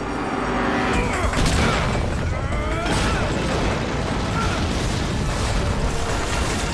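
Dense action-film fight soundtrack: booms, crashes and whooshing sweeps mixed loud together.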